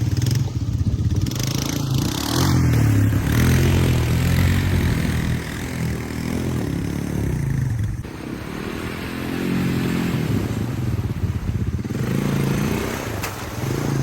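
Honda ATV engine revving up and down, pitch rising and falling repeatedly as the throttle is worked under load, with scraping and clatter over it.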